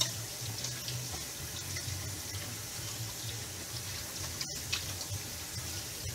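Kitchen sink faucet running steadily while hands are rubbed and washed under the stream, scrubbing off sticky dough, with a steady low hum underneath.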